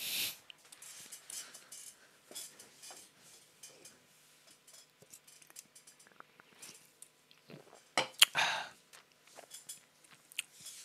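Small handling sounds at a desk: scattered light clicks and taps, with a louder cluster of sharp knocks and a short rustle about eight seconds in.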